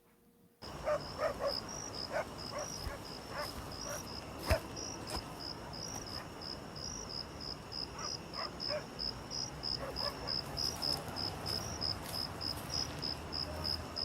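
Crickets chirping: a steady series of short, high chirps, about three a second, with faint clicks beneath. It starts and stops abruptly.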